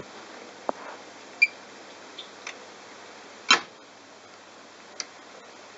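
Bosch washing machine washing a load of towels: a steady hiss with a few irregular clicks and knocks, the loudest about three and a half seconds in.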